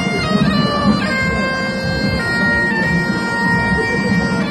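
Wind instruments playing a parade march, the melody moving in steps between long held notes.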